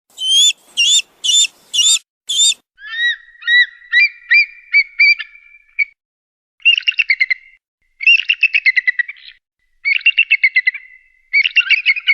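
Kite (cheel) calls. First come five sharp whistled calls about half a second apart, then a run of short rising notes, then several rapid chattering trills.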